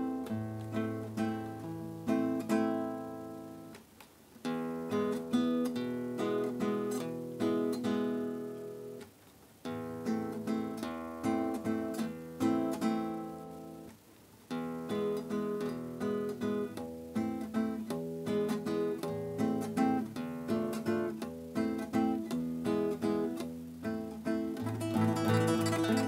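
Acoustic guitar playing an instrumental melody of plucked notes and chords, its phrases broken by brief pauses about four, nine and fourteen seconds in; the playing grows fuller and louder near the end.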